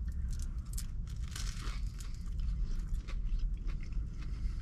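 Close-up crunching and chewing of a crisp deep-fried vegetable spring roll, with irregular crackles of the fried pastry as it is bitten and chewed.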